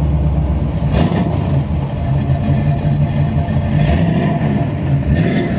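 A freshly rebuilt 427 big-block V8 running through ceramic-coated headers and a new exhaust, being given some gas and revved above idle.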